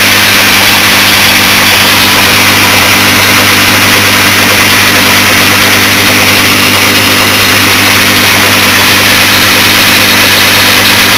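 1942 South Bend lathe running steadily while turning an acetal plastic workpiece: a constant motor and drive hum under an even whirring hiss.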